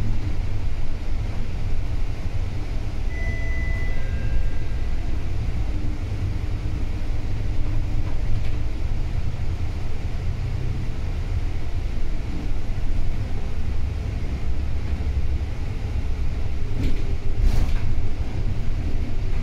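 Volvo B9TL double-decker bus running, a steady low rumble of engine and road noise. A brief high tone comes about three seconds in, and a few clicks come near the end.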